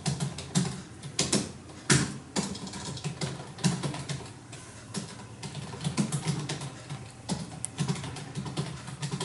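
Hands handling a curled human hair bundle, fingers rubbing and pressing the hair and its rolled weft: irregular rustling with scattered soft clicks, the sharpest about two seconds in.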